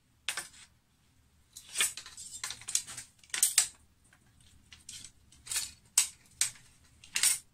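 Steel speargun shaft clicking and scraping against the barrel and trigger mechanism of a Pathos speargun as it is fitted into the mechanism: a string of short, sharp metallic clicks with pauses between them, the loudest near the end.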